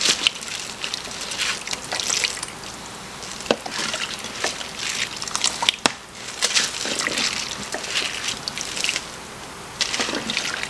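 A spoon scooping cooked vegetables out of broth in a Crock-Pot slow cooker into a plastic bowl. Broth sloshes and drips off the spoon, with a few sharp clicks of the spoon against the bowl.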